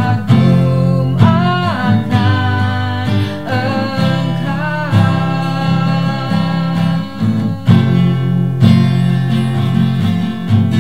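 A song: an acoustic guitar strummed as accompaniment to singing, the voice holding notes with vibrato.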